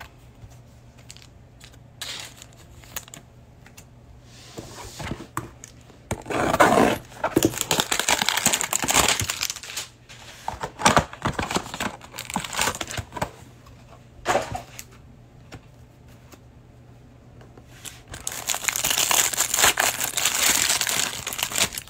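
Cardboard hanger box being opened and the cellophane wrapper around a stack of trading cards crinkling and tearing as it is pulled open by hand. It comes in several rustling spells with quiet gaps between, the longest near the end.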